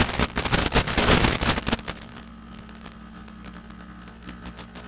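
Hexcopter's FPV audio feed: loud crackling, buffeting noise for about the first two seconds, then only a steady electrical hum with a faint high whine.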